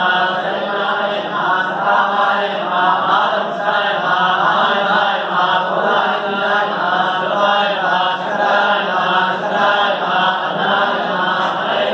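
A group of priests chanting the names of Shiva together in Sanskrit, a steady, continuous recitation of many voices.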